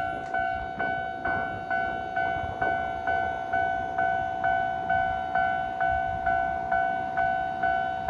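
Japanese railway level-crossing warning bell ringing steadily. Each ding is a clear bright tone that fades quickly, repeating a little over twice a second. A passing train's low rumble and wheel clicks are faint underneath.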